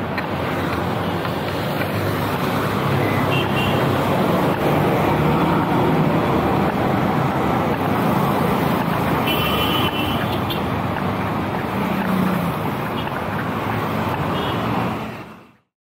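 Steady city road traffic: engines and tyres of passing vehicles as a continuous rumble, with a couple of brief high tones along the way. The sound fades out to silence near the end.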